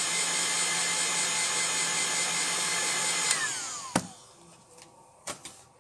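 Hot-air heat gun blowing steadily with a whine, heating a phone's camera lens glass. About three seconds in it is switched off and the whine falls away as the fan winds down, followed by a sharp click and a couple of light knocks.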